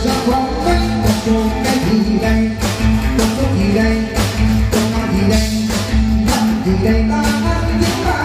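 Live stage band playing an upbeat song with a steady drum beat of about two strokes a second and a strong bass line, with singing.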